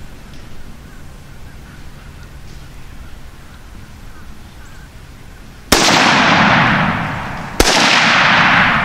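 Two rifle shots about two seconds apart, the first almost six seconds in, each followed by a loud tail that fades until the next. Both shots are fired at a group of feral hogs.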